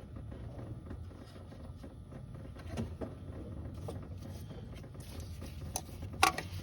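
Scattered light clicks and taps of hand tools and parts being worked in a car's engine bay during hose removal, with a sharper click about six seconds in, over a low steady hum.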